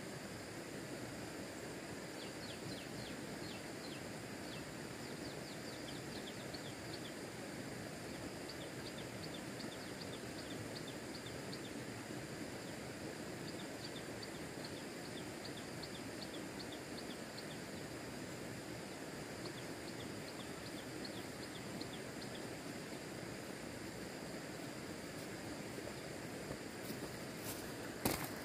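Outdoor rural ambience: a steady background noise with faint, repeated high chirps through most of it, and a sharp click near the end.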